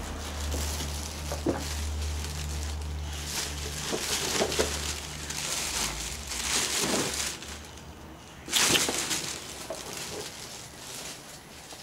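A low vehicle engine hum that fades out after about seven seconds, with scattered rustling and scuffing as a puppy noses about in ivy on a tiled patio. A loud short rustle comes about two-thirds of the way in.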